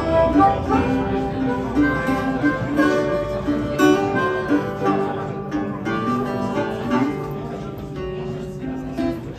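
Guitar playing a song's instrumental introduction: a continuous run of plucked notes and strummed chords.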